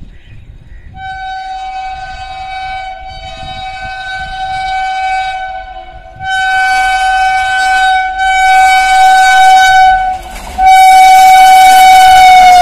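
A WAP7 electric locomotive's horn sounds three long, steady blasts with short breaks between them. Each blast is louder than the one before as the passenger train approaches.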